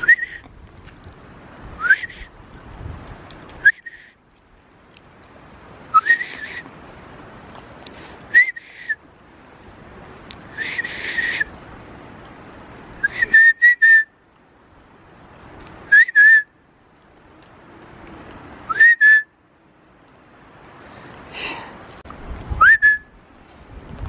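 A person whistling short, rising notes, about eleven of them spaced two to three seconds apart, over wind noise on the microphone.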